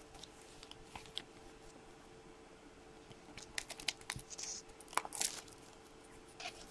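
Faint crinkling and light clicks of a clear plastic trading-card case and its plastic film being handled by hand, busiest in the middle of the stretch.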